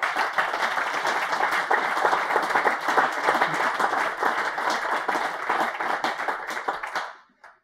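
Audience applauding, a dense spread of many hands clapping that dies away near the end.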